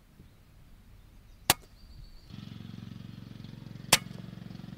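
Two sharp shots from an Air Arms S510 Ultimate Sporter .177 pre-charged pneumatic air rifle with its silencer fitted, about two and a half seconds apart. A low steady hum comes in between the two shots.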